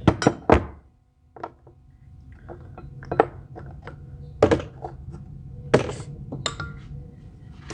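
Irregular metallic knocks and clinks of tools and metal parts being handled and set down, about a dozen separate strikes, the loudest in the first second.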